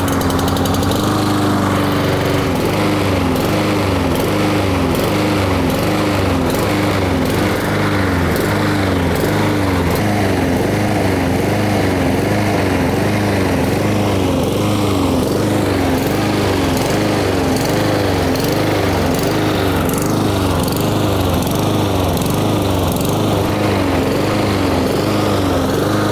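Honda GCV lawn mower engine running and surging, its speed rising and falling in a regular cycle about once a second. The hunting comes from a lack of fuel to the engine, a carburetor issue.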